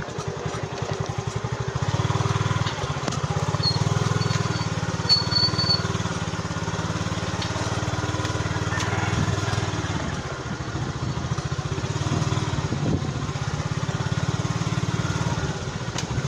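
Small motorcycle engine running steadily at low revs as the bike is ridden slowly over a rough, rocky dirt trail.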